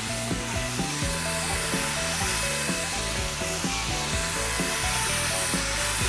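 Power sander running steadily on wood, a continuous hiss, under background music with a steady beat.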